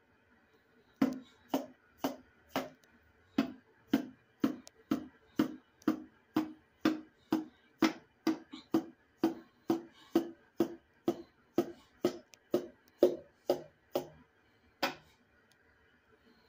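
The butt of a hammer handle tapping on a piston crown, driving the piston down the cylinder bore of a Case 207D diesel block: about two light taps a second, each with a short ring, for some 13 seconds, then one last tap after a short pause.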